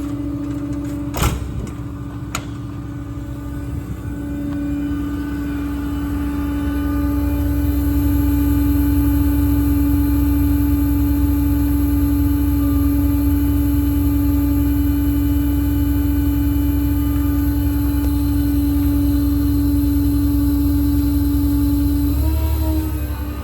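Truck-mounted hydraulic air compressor running off the 6.7 Cummins diesel, a steady whine over a low engine rumble that grows louder about six to eight seconds in and holds, with a couple of sharp clicks near the start.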